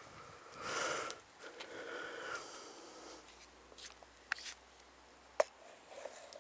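Breathing close to the microphone: a sniff-like rush of breath about a second in and a weaker one just after, followed by a few sharp clicks.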